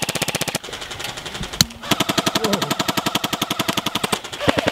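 Airsoft rifle firing full-auto bursts of rapid, evenly spaced shots: a burst that stops about half a second in, a single shot, then a long burst of about two and a half seconds, and another burst starting near the end.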